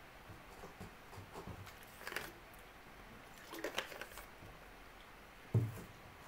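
Faint room tone with a few scattered rustles and clicks, and a soft thump about five and a half seconds in, the loudest sound.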